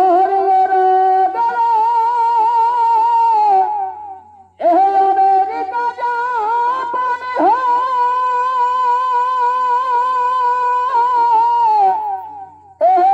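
Shehnai playing a Chhau dance melody in long held notes with quick slides and ornaments, without drums. Two phrases, each broken off by a short breath, about four seconds in and again near the end.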